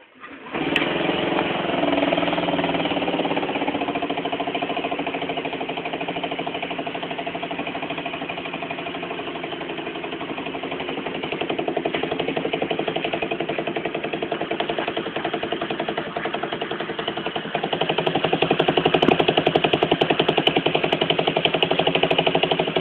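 Honda Metropolitan CHF50 scooter's small four-stroke single-cylinder engine starting up about half a second in and then idling steadily through a homemade exhaust made from the gutted stock muffler. It gets louder near the end.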